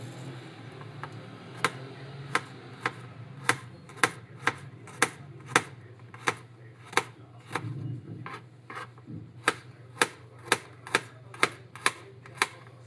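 A knife chopping on a cutting board: about twenty sharp knocks, roughly two a second and unevenly spaced, starting about a second and a half in and stopping near the end.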